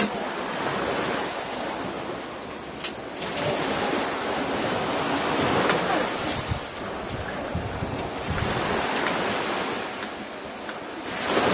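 Wind blowing on the microphone: a steady rushing noise that swells and eases, with a few faint clicks.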